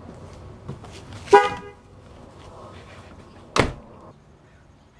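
A short car horn toot about a second in, then a car door slamming shut a couple of seconds later.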